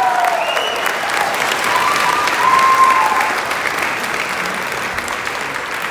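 An audience of guests clapping, with a few voices calling out over the applause in the first half; the clapping dies away toward the end.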